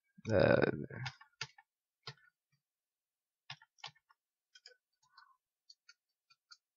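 Computer keyboard keys and mouse buttons clicking: a dozen or so sharp, separate clicks as shortcuts are typed in a 3D modelling program. A short, low, voice-like sound from the narrator comes first and is the loudest thing.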